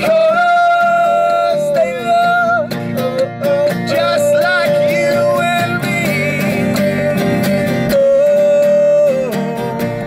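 A small band playing inside a car: strummed acoustic guitar and electric bass under voices singing long held notes in harmony, one note wavering with vibrato partway through.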